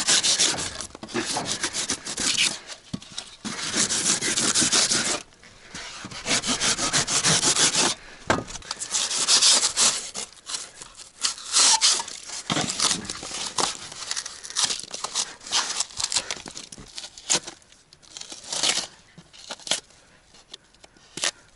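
Hand saw cutting away cured polyurethane spray foam, in runs of quick rasping strokes with short pauses between them.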